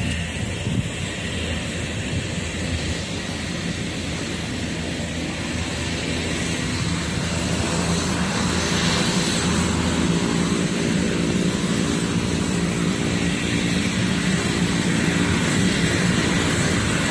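Propeller aircraft engines droning steadily, with a pitched hum that grows louder from about halfway through.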